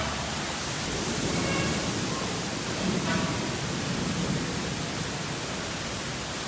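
Heavy thunderstorm downpour: rain pouring down in a steady hiss, a little louder through the middle.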